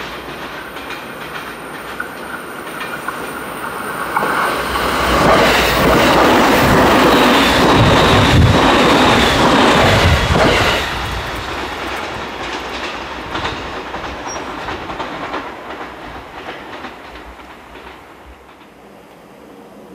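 A train passing close by: its noise builds from about four seconds in, stays loud for about six seconds as the cars go past, then drops away and fades.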